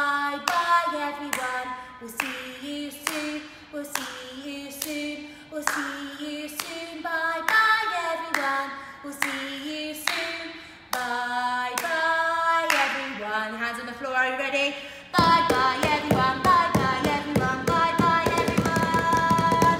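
A woman singing a children's goodbye song unaccompanied, clapping her hands on a steady beat about twice a second. About fifteen seconds in, the clapping gives way to a fast patter of hands slapping the gym floor mat that speeds up, under a long held high note.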